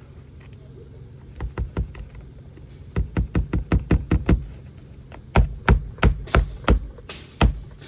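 Hammer driving roofing nails into a new asphalt shingle: runs of sharp strikes, up to about four a second, over a steady low rumble.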